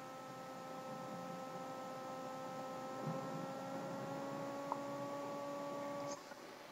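Steady electrical hum made of several held tones that drift slowly up in pitch, cutting out briefly near the end.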